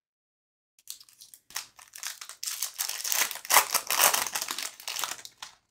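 Foil wrapper of an Upper Deck CHL hockey card pack being pulled open and crinkled by hand. It starts about a second in as a dense crackling rustle and fades out near the end.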